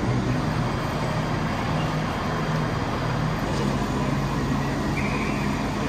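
Railway station concourse ambience: a steady wash of noise with a low, wavering hum beneath it, and a short high tone about five seconds in.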